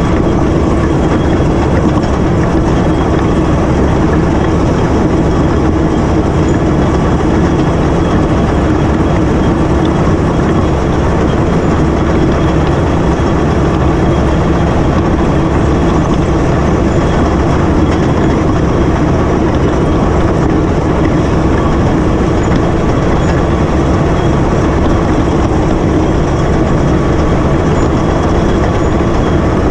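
Cat D8K bulldozer's six-cylinder turbo diesel running steadily under load as its blade pushes through deep snow, with a rattling clatter from its steel tracks.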